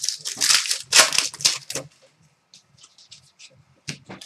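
Hockey trading cards being handled and sorted by hand: rustling and crinkling for about two seconds, then a few faint taps and a sharper click near the end.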